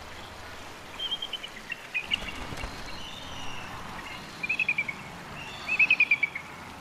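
Bald eagles calling: several short runs of quick, high chittering notes, each dropping slightly in pitch, the loudest near the end, over a steady background hiss.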